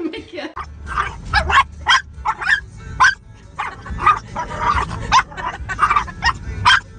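Dog barking and yipping over and over, about two to three short barks a second, over a low steady rumble; it cuts off suddenly near the end.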